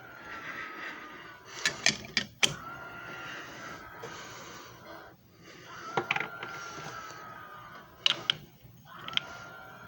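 JFJ Easy Pro disc repair machine running: a motor whine that sags slightly in pitch, stopping and restarting every two to three seconds, with sharp clicks and clacks between the runs.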